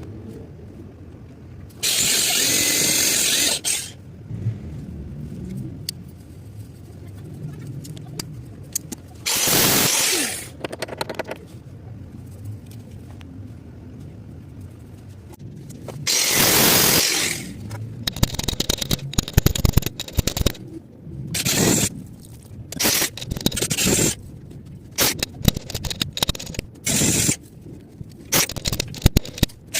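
Repeated bursts of harsh scraping noise, the first three each a second or two long and well apart, then a quicker run of short scrapes and clicks in the last third.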